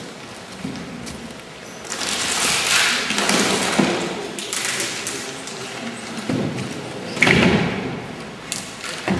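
A large board panel scraping and sliding as it is tipped over. About seven seconds in comes a heavy thud as a wooden chair comes down onto the floor, with a few lighter knocks after it.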